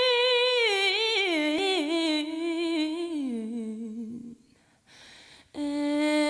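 Slow soul song on the soundtrack: a solo female voice, unaccompanied, holds one long high note, then slides down through a wavering run and stops about four seconds in. Near the end she starts another, lower held note.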